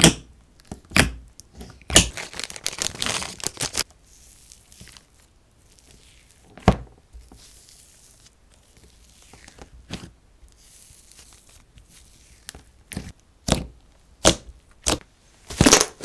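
Glossy slime being poked, pressed and folded by hand in its tub, making sharp pops and clicks, with a stretch of dense crackling about two seconds in and a cluster of pops near the end.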